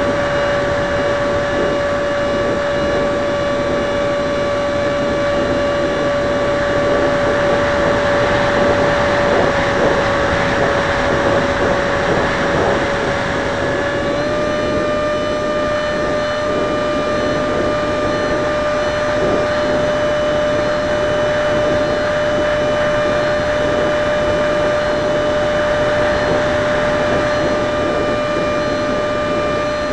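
Skyangel 50mm electric ducted fan running steadily in flight: a held whine over a dense hiss, stepping slightly higher in pitch about halfway through.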